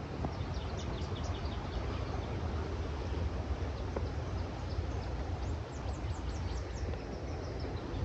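Steady low roar of the Gathiba River's rushing water and waterfall, with a bird giving runs of short, high, falling chirps about a second in and again from about five and a half to seven seconds.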